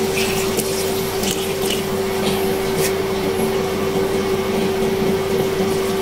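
Steady machine hum holding one pitch, like a kitchen fan running. Under it is the faint splash of hot water being poured into a wok of pork ribs in sauce.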